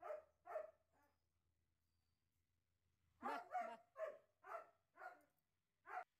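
German shepherd barking: a few quick barks, a pause of about two seconds, then a run of about seven barks roughly half a second apart.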